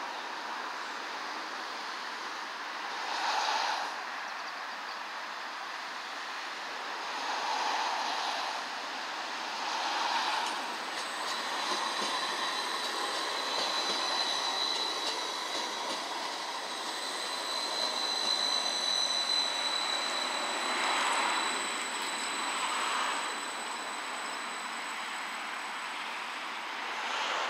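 Edinburgh Trams CAF Urbos 3 electric tram running past on its rails, with a thin, steady high-pitched whine for several seconds in the middle as it goes by close, over a hiss of wind noise that swells now and then.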